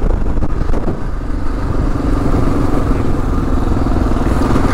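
2022 Kawasaki KLR 650's single-cylinder engine, fitted with a Lexx slip-on exhaust, running while the bike is ridden. From about a second and a half in, the engine note holds steady.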